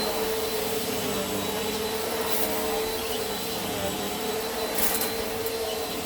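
Eureka Airspeed Plus (NEU110) compact vacuum cleaner running steadily over a rug, a constant motor hum over a broad suction hiss. Two brief high crackles break in, about two seconds in and near the end.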